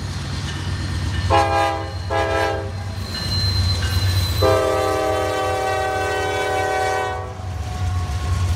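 A train sounding a multi-note horn: two short blasts, then one long blast, over the steady low rumble of the moving train.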